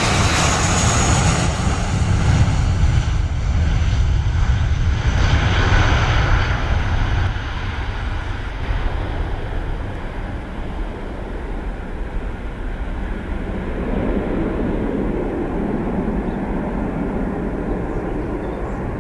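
Airbus A320 jet airliner's engines at takeoff thrust, a loud steady roar as it accelerates down the runway. After about eight seconds, once it has lifted off and is climbing away, the high hiss fades and a lower rumble carries on.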